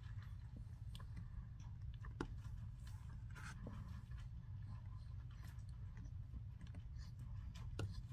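Chewing on a mouthful of powdery starch mix: scattered soft crunches and small clicks.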